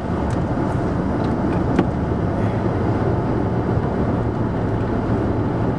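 Steady rumble of strong wind and road noise in a vehicle cabin during a dust storm, with a couple of faint ticks near the start.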